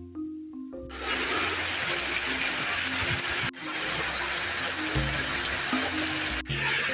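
Heavy rain falling on trees, a dense steady hiss that starts suddenly about a second in, with two brief breaks. Soft background music with mallet notes plays underneath.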